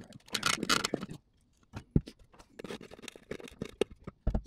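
Intermittent scraping and metal clicks as pliers work grade nails out of the fresh concrete in a foundation wall form, with a sharp click about two seconds in.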